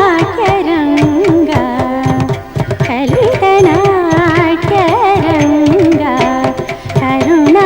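Carnatic classical song accompanying a Kuchipudi dance: a singer's heavily ornamented melody that slides and oscillates in pitch, over frequent hand-drum strokes.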